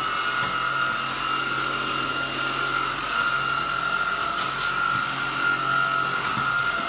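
Tineco A10 Hero cordless stick vacuum running steadily, a high whine over an even rush of air.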